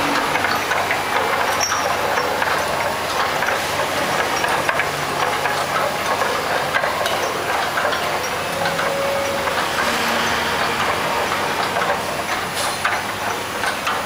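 Automatic rotary bottle rinser running: a steady hiss with many light clicks and clinks from small glass bottles moving through its grippers and across the turntable.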